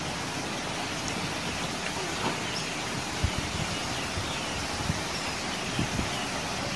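Outdoor ambience at a garden fishing pond: a steady hiss, with a few soft low knocks and faint bird chirps.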